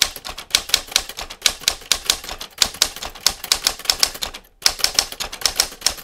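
Typewriter key strikes in a rapid, irregular run of sharp clicks, with a brief pause about four and a half seconds in. It is a sound effect for text being typed out on screen.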